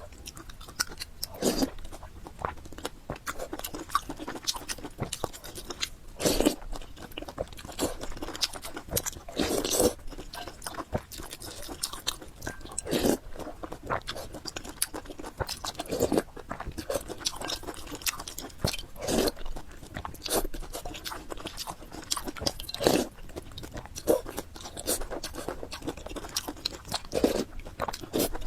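Close-miked chewing of spicy fried noodles with pork, with wet clicks and crunches throughout and louder bites every three or four seconds.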